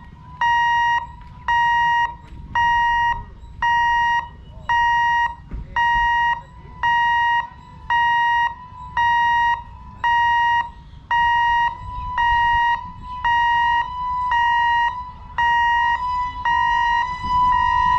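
Level-crossing warning hooter beeping about once a second, each beep a steady electronic tone, sounding while the gate is closed for an approaching train. Near the end the beeps run together and a low rumble rises as the train nears.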